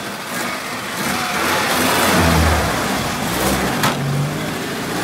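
UAZ-469 engine revving as the off-roader drives through a shallow river, its wheels churning and splashing the water. There is one sharp click a little before the end.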